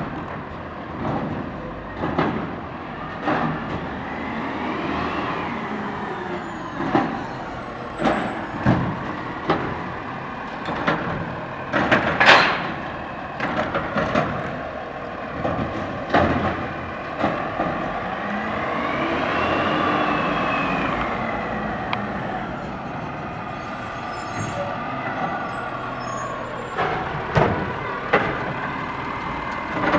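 Autocar ACX garbage truck with a DaDee Scorpion automated side-loader arm at work. The engine twice runs up and back down with a rising and falling whine, among repeated clanks and knocks, with one loud bang about twelve seconds in.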